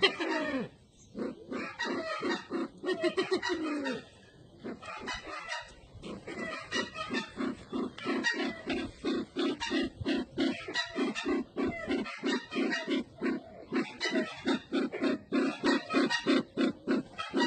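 Low, rapidly repeated call notes from the Sumatran ground bird known as burung merah mata (sempidan), about three or four notes a second. The calling pauses briefly about four seconds in, then runs on steadily.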